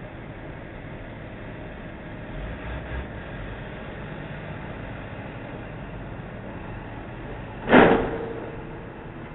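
The top of a box truck's cargo box strikes the low steel railroad trestle in one loud crash about three-quarters of the way in, followed by a ringing tone that fades over about a second. Steady traffic noise runs underneath.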